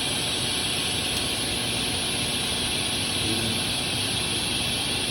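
Skate sharpening machine running steadily, its motor and grinding wheel making a continuous even whir with a hiss on top.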